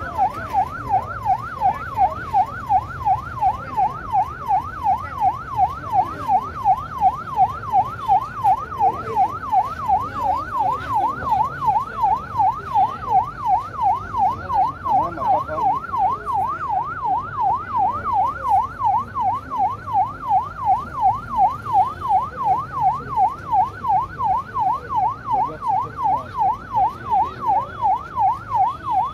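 Ambulance siren on a fast yelp, its pitch sweeping up and down evenly about two and a half times a second without a break.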